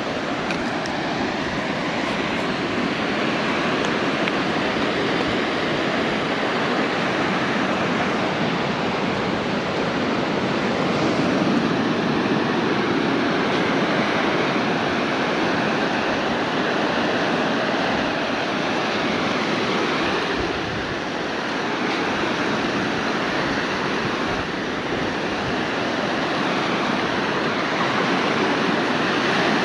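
Ocean surf washing in over a rocky shore: a steady rush of water that swells and eases a little in loudness.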